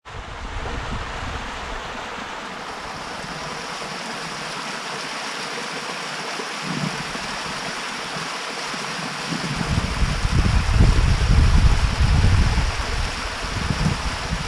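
Small waterfall cascading down a rock chute into a pool, a steady rush of splashing water. About ten seconds in a deeper, gusting low rumble joins it and the sound grows louder.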